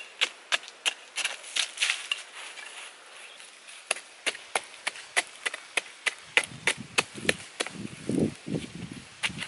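A wooden stick jabbed again and again into dry, ashy soil to dig a hole: a run of sharp, scratchy strikes about two or three a second, with a short lull about two and a half seconds in. From about six seconds in, duller thumps come with the strikes.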